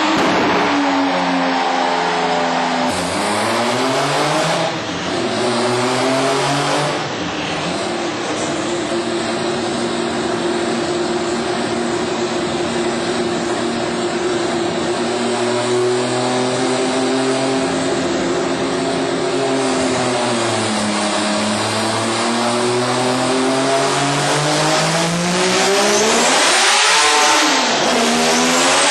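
Mazda 20B-RE three-rotor rotary engine running on a dyno. The revs drop and climb in the first few seconds, hold steady for a long stretch, dip, then rise sharply near the end, dip quickly and climb again.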